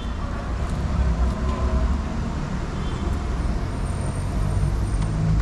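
Outdoor street ambience dominated by a steady low rumble.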